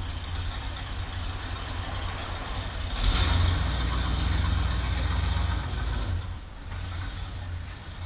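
Engine of the A-Team replica van running, low and steady, getting louder about three seconds in and easing off again near the end.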